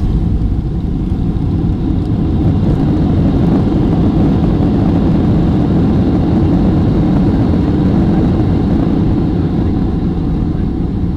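Boeing 737-800's CFM56-7B turbofan engines in reverse thrust during the landing rollout, heard from inside the cabin over the wing: a loud, steady rush that builds over the first few seconds and eases off near the end.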